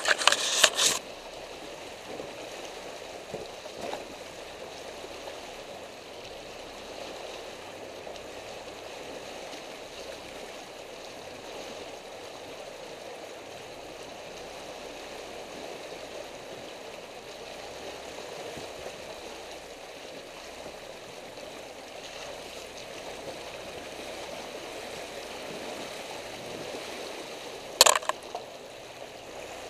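Steady rush of water as an off-road SUV's tyres wade through a shallow stream bed. In the first second, leaves and branches brush and scrape loudly against the side of the vehicle, and near the end there is one sharp knock.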